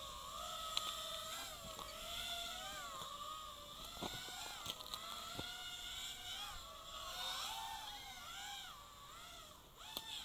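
FPV quadcopter flying, its motors and propellers whining with a pitch that rises and falls constantly as the throttle changes. A few faint clicks come around the middle.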